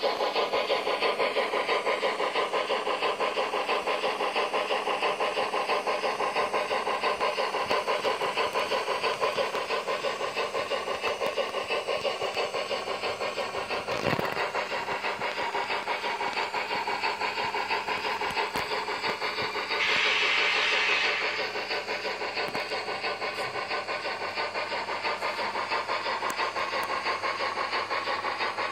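Digital steam-locomotive sound from a Zimo sound decoder in a TT-scale BR 95 model locomotive, played through its small speaker: rapid, steady chuffing, with a click about halfway and a hiss of steam lasting about a second roughly two-thirds of the way in.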